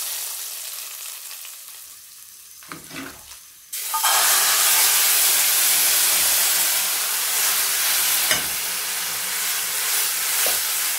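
Hot tadka oil with cumin seeds and dried red chilies sizzling as it meets the chana dal, dying down over the first few seconds. About four seconds in, a loud sizzle starts suddenly as the dal and tempering are tipped together in the hot pan, with a sharp metal clink a little after eight seconds.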